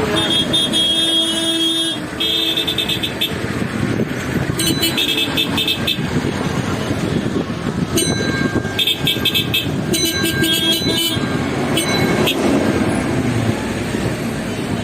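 Busy city road traffic, with engines running and car horns honking several times: a held horn in the first couple of seconds, then bursts of short beeps through the middle.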